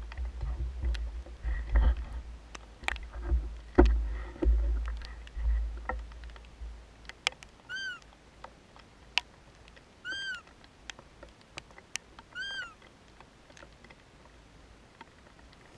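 Three short high mewing calls, each rising then falling in pitch, about two seconds apart in the second half. Before them, wind rumbles and knocks on the microphone, and raindrops tick on it throughout.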